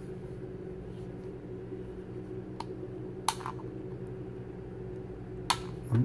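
A few sharp little plastic clicks, three of them, the middle one loudest, as fingers work the case of a small ThiEYE i60e action camera, over a steady low hum.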